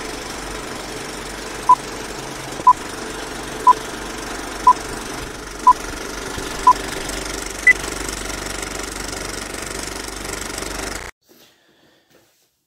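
Film countdown leader sound effect: a steady film projector whirr and clatter with a beep once a second, six at one pitch and then a seventh higher beep. The whole effect stops suddenly near the end.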